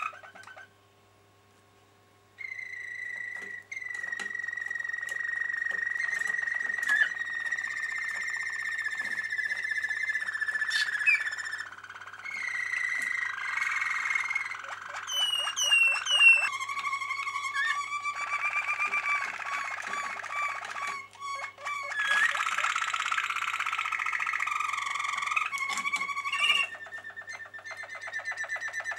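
Caged domestic canaries singing: long rolling trills and held notes, with a few quick rising whistles about halfway through. The song stops briefly about a second in, then runs on.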